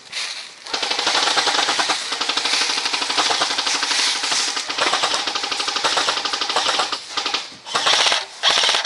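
Airsoft gun firing long full-auto bursts, a fast, continuous rattle of shots, followed near the end by a couple of short bursts.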